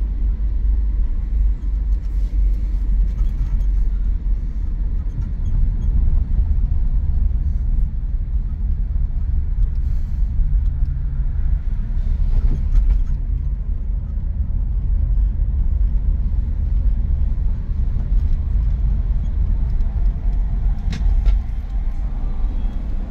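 A car driving: a steady, deep rumble of road and engine noise.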